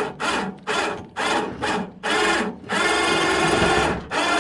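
12-volt electric winch on a truck-mounted crane running in short stop-start bursts, with one longer run of over a second past the middle, as it hoists a load.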